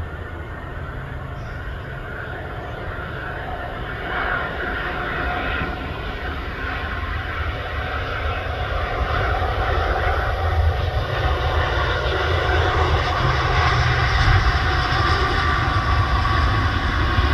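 Jet engines of a Malaysia Airlines Airbus A350 landing: a steady jet roar with a whine on top, growing steadily louder as the airliner flares over the runway and rolls out past.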